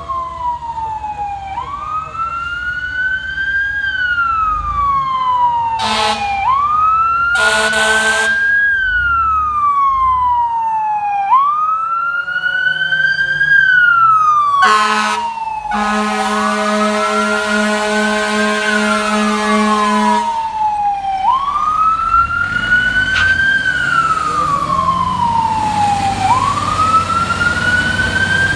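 Fire truck responding with its electronic wail siren rising and falling about every five seconds. Its air horn blasts several times over the siren, the last blast held for about four seconds.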